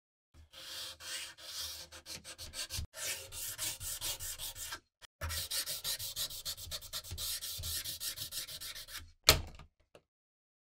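Sandpaper rubbed by hand along the steel blade of an antique Bowie knife, in quick, even back-and-forth strokes, in three runs with short pauses between them. Near the end comes one sharp knock, the loudest sound.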